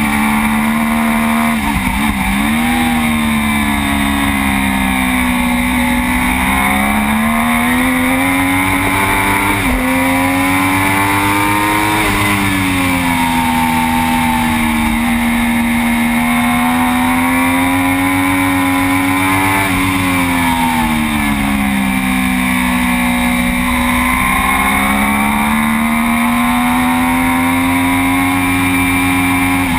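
Triumph Daytona 675's three-cylinder engine running hard at high revs, heard from onboard the bike. Its pitch climbs and drops several times as the rider accelerates and backs off through the corners.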